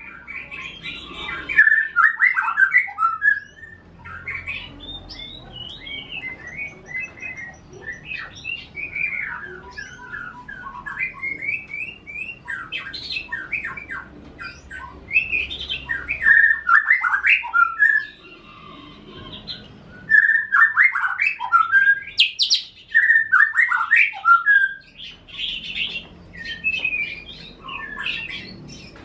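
Caged songbirds singing: loud, varied, quick phrases in bouts of a second or two, separated by short pauses.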